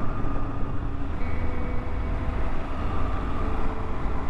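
Motorcycle cruising at road speed: a steady rush of wind and road noise over the drone of the engine, heaviest in the low end.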